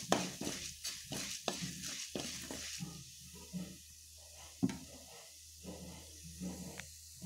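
Chana dal frying in hot oil in a pan, sizzling, while a spoon stirs and scrapes it against the pan in quick strokes. After about three seconds the sizzle drops and the strokes come slower and softer.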